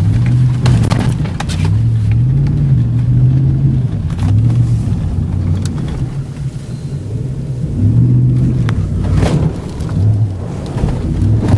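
GMC Sierra pickup's engine, heard from inside the cab, revving up and dropping back again and again as the truck pushes through deep floodwater. A few knocks sound near the start, about nine seconds in and near the end.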